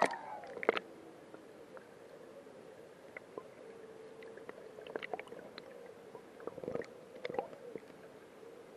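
Muffled underwater sound picked up by a camera submerged in a swimming pool: gurgling water with scattered clicks and pops, a few sharp ones near the start, over a faint steady hum.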